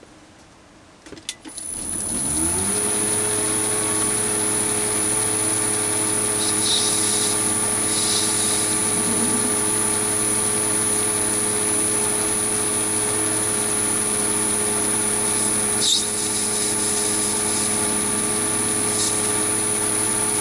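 Chinese mini lathe's spindle motor starting up, rising in pitch for about a second before settling into a steady hum with a high whine, the spindle turning at about 970 rpm. A 45-degree HSS tool makes faint, brief cutting sounds as it chamfers the shoulders of a brass and stainless steel workpiece, and there is a single click about three-quarters of the way through.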